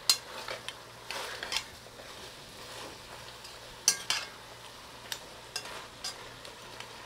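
A metal spoon stirring pork pieces in a metal pot, with sharp clanks and scrapes against the pot, the loudest near the start and about four seconds in, and lighter taps between. Under it a faint steady sizzle of the pork browning in the pot.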